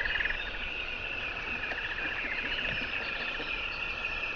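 Outdoor wildlife chorus: steady animal calls with a fast pulsing trill.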